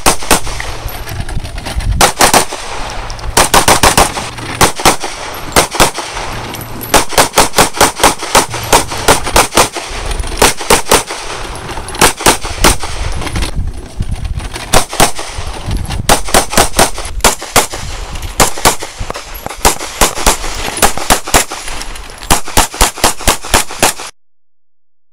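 Handgun shots fired in rapid strings, several shots a second, with short pauses between strings. The firing cuts off suddenly near the end.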